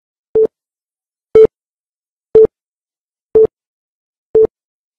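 A series of short electronic beeps on one steady mid-pitched tone, one each second, five in all, with silence between them.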